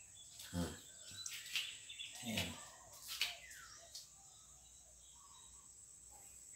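Faint background sounds: a few scattered bird chirps and short falling calls over a steady high-pitched hiss, growing quieter in the last couple of seconds.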